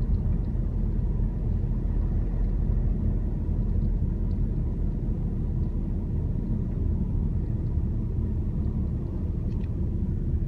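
Ford Kuga producing a steady low rumble, the abnormal noise the owner is recording, with a few faint ticks above it.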